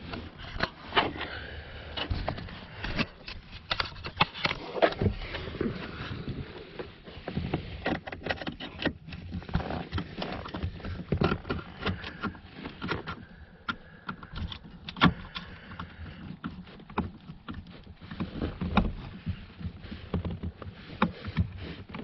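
Irregular clicks, taps and scrapes of hands working under a car seat, handling plastic trim and the wiring harness by the seat track, with some rustling.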